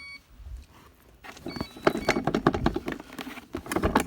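Rattling clicks and knocks as the hoverboard kart's frame is handled against the hoverboard, with a few short high beeps about a second and a half in.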